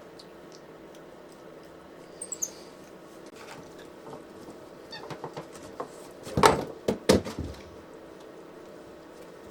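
White-faced capuchin monkey giving a few short, high squeaks about two seconds in, followed by a burst of crackling and rustling about six seconds in, with a faint steady hum underneath.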